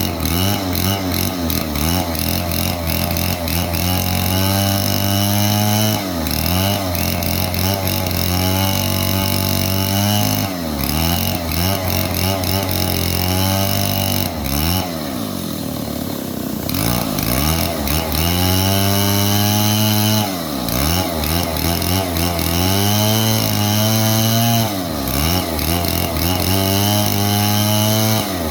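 Stihl 070 two-stroke chainsaw running hard while cutting wood, its engine speed dropping and climbing back again about five times, with the longest dip in the middle.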